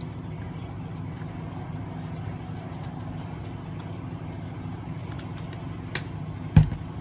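Steady low hum, with a light click about six seconds in and a sharp, loud thump just after it.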